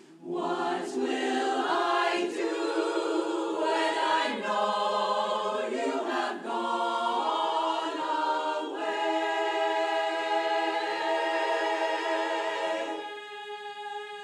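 Women's barbershop chorus singing a cappella in close harmony. After a brief break right at the start the voices move through changing chords, then hold a long chord from about nine seconds that drops to a softer sustained chord near the end.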